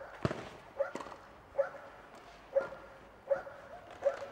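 A dog barking in short, repeated yaps, roughly one a second. There is a single sharp knock about a quarter second in.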